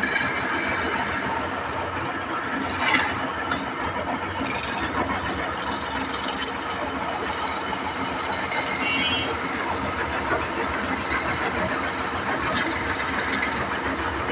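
Continuous mechanical rattling and scraping, a dense clatter of small clicks with no steady pitch.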